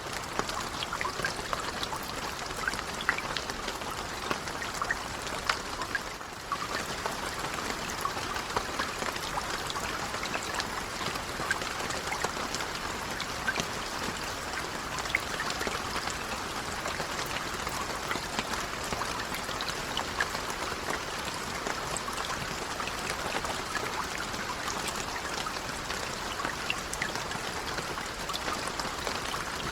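Calm, steady rain, a soft hiss of falling water dotted with many small, separate drop impacts. It dips briefly about six seconds in, then carries on unchanged.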